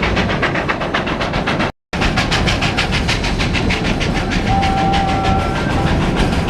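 Steam train running, heard from aboard a passenger car: a fast, even beat of about six strokes a second over a steady rumble. The sound drops out completely for a split second just before two seconds in, and a faint steady tone sounds for about a second past the middle.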